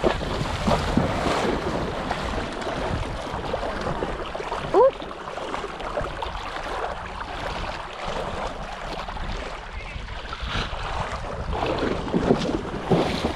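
Pony wading through shallow lake water, its legs sloshing and splashing steadily, with wind buffeting the microphone. A brief rising squeak cuts through about five seconds in.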